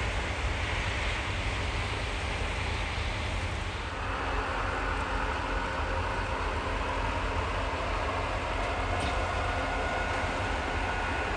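Steady vehicle rumble with faint engine tones, growing fuller about four seconds in.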